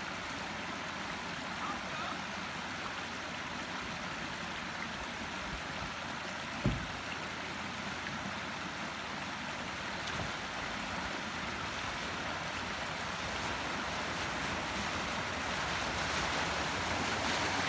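Stream water rushing steadily over a small stone weir beside a ford. Towards the end the noise grows louder as a Land Rover Discovery comes through the ford, its wheels splashing through the water. One brief low thump about a third of the way in.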